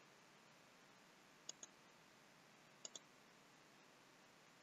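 Computer mouse button clicking: two pairs of quick clicks, about a second and a half apart, over near-silent room tone.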